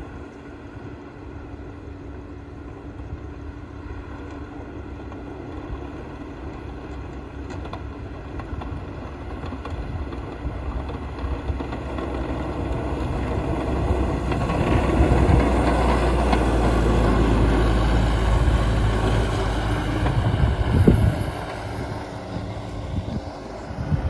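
John Deere 6110 tractor's diesel engine running as the tractor drives past. It grows steadily louder as it approaches, stays loudest for several seconds as it passes, and drops away with a short sharp knock just before it fades.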